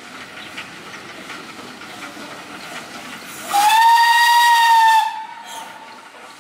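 Steam locomotive No. 346 hissing steam from its cylinder cocks as it approaches. About halfway through it sounds one whistle blast of about a second and a half, a steady high note that slides up slightly at the start, a warning for the unguarded level crossing.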